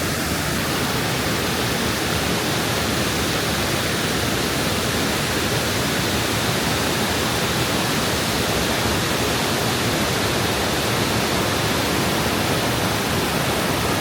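Mae Ya Waterfall: a loud, steady rush of falling water.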